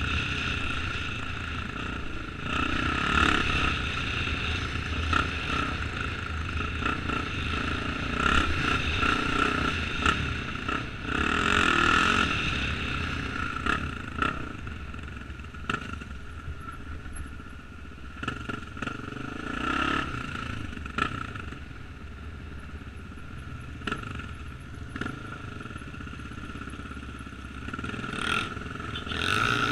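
Honda XR single-cylinder four-stroke enduro motorcycle running on a gravel trail, engine note rising and falling with the throttle, with stones and the bike's chassis clattering now and then. It goes quieter for a stretch past the middle before picking up again near the end.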